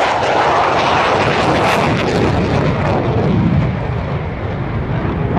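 Roar of a Royal Netherlands Air Force F-16 fighter's Pratt & Whitney F100 turbofan on a low display pass, dropping in pitch about three seconds in as the jet goes by and draws away.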